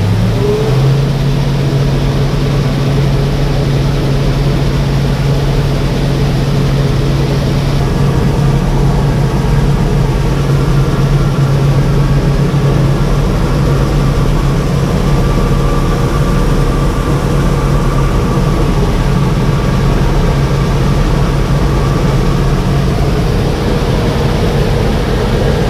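Combine harvester's engine running under load while it unloads soybeans through its unloading auger. The drone rises in pitch in the first second, then holds steady.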